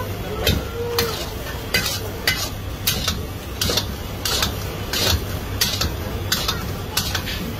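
Metal ladle knocking and scraping against a large metal kadai (wok) as rice is stirred and tossed, one stroke about every two-thirds of a second.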